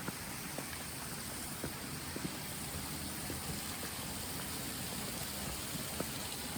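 Steady rushing of a mountain stream, with a few faint ticks through it.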